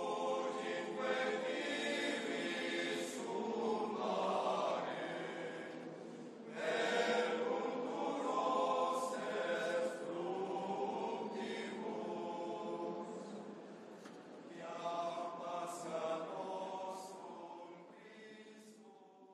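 Choral chanting: several voices singing long held notes, fading out near the end.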